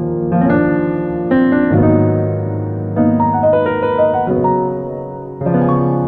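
Background piano music: a melody of single notes over held chords, with new notes struck every half second to a second.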